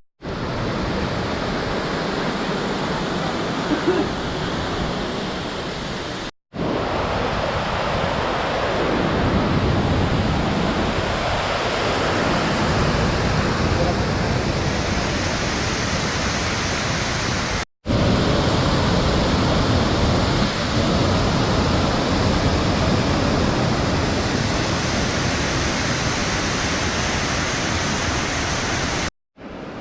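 Steady loud roar of a waterfall's falling water, heard across several short clips that cut abruptly in and out.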